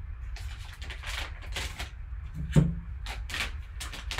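Foil trading-card pack wrapper crinkling and tearing in gloved hands, a run of short rustles, with a single sharp knock a little past halfway.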